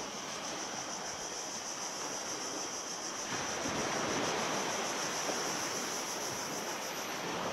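Surf washing steadily on a sandy beach, swelling louder about three seconds in as a wave comes in, with a steady high hiss above it.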